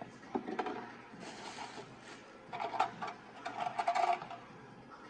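Hands rummaging through and handling small parts: a string of light clicks, clinks and rattles with some rustling, busiest in the second half.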